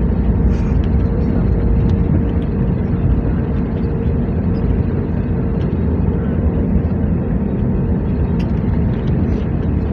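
Airplane noise during landing: a steady, loud low rumble of engines and rushing air, with a faint steady whine that fades out about six seconds in.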